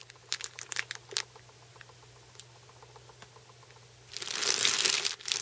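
Small plastic parts bags crinkling as they are handled: a few light rustles and clicks at first, then a quiet stretch, then loud continuous crinkling from about four seconds in. A low steady hum runs underneath.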